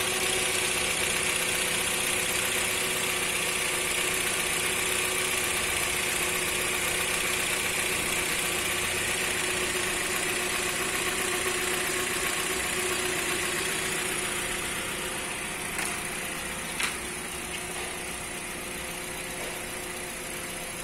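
Hyundai Elantra's freshly overhauled four-cylinder petrol engine idling steadily and smoothly, with two light clicks about three-quarters of the way through.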